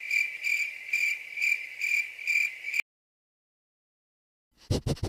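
A cricket chirping: a steady high trill that swells about twice a second, then cuts off suddenly after about three seconds. Near the end a quick run of scratchy strokes begins.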